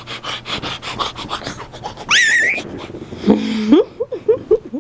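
Baby laughing in quick, panting breaths, then a high-pitched squeal about two seconds in, followed by short laughing vocal sounds.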